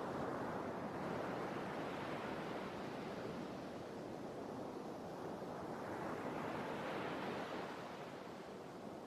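Sea waves washing on the shore: a steady rush of surf that swells twice, near the start and again about two-thirds of the way through, and eases off near the end.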